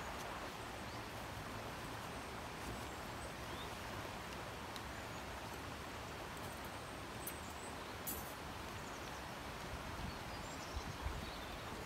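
Steady outdoor ambience: an even rushing noise, with a few faint clicks and small knocks.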